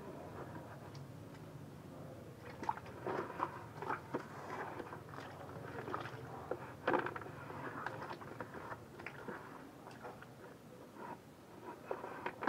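Water splashing and sloshing in a plastic bucket, with irregular splashes and light knocks starting about two seconds in.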